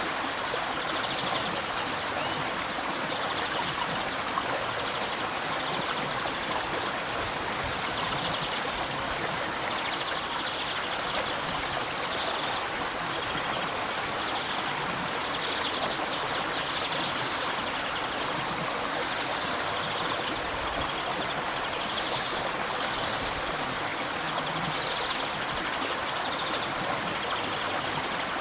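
River water flowing in a steady, unbroken rush and babble.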